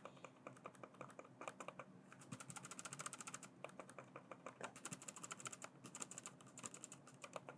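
Silent tactile mouse switches in a Solakaka SM802 wireless mouse being clicked over and over: faint, soft clicks in quick runs, really quiet.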